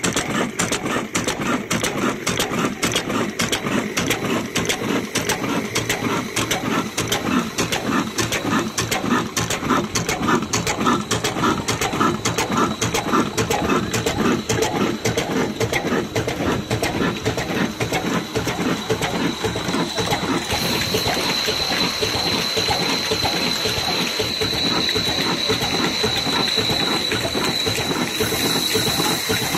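Old stationary diesel 'black engine' running steadily with a fast, even clattering from its fuel pump and valve gear. A steady high-pitched whine joins about two-thirds through.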